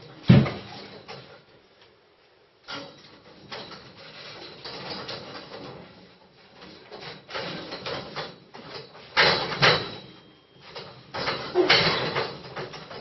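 Steel scaffold tubes and clamps knocking, rattling and creaking as a barefoot person climbs, hangs and swings on the frame. A sharp thud comes about half a second in, and louder clanks come around nine and twelve seconds in.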